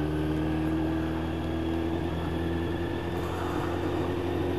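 Yamaha YZF 1000cc motorcycle's inline-four engine running steadily at an even cruising speed, with a haze of wind noise.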